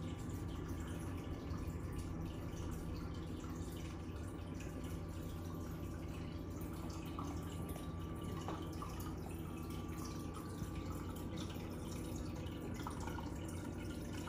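Aquarium filter running: a steady low hum with water trickling and dripping into the tank.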